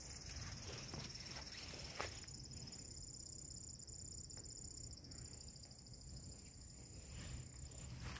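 Insects chirring steadily: a high, finely pulsing trill with a second steady high note above it, over a faint low rumble. One short tap about two seconds in.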